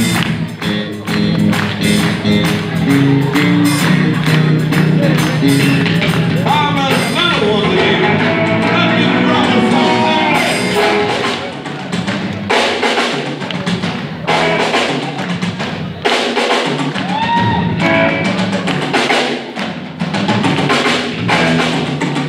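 Live electric blues band playing: electric guitar, bass, drum kit and keyboard. A dense, steady beat runs for about seven seconds, then bending lead lines come in and the beat thins out to sparser hits through the second half.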